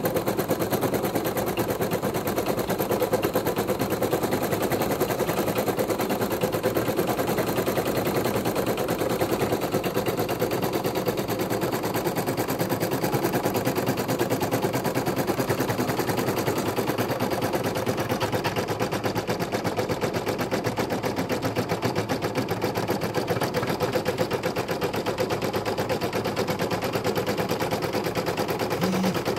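Embroidery machine stitching a design at speed: a fast, steady rattle of needle strokes that runs on without a break.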